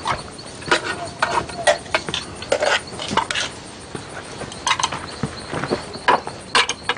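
Spoons and a serving ladle clinking and scraping against metal bowls and a pot, a string of irregular short clinks and knocks.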